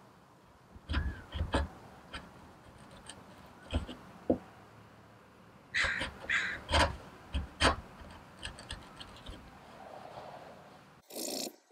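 A bench chisel paring walnut by hand: irregular crisp cuts and crunches as the blade shaves the wood, busiest past the middle. A short harsh rasp near the end.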